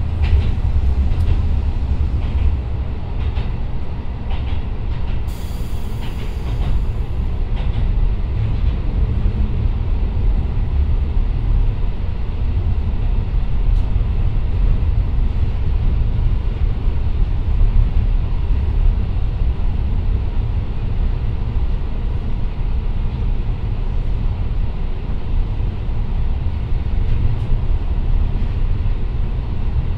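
Running noise inside a JR Kyushu KiHa 125 diesel railcar with its Niigata DMF13HZ engine: a steady low rumble of engine and wheels on the rails. A few clicks from the wheels come near the start, and a brief high hiss comes about five seconds in.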